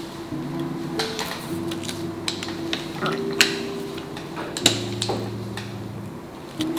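Sharp clicks and knocks of a bicycle frame being clamped into a repair stand, the loudest two about halfway through. Under them is soft background music of held chords that change every second or so.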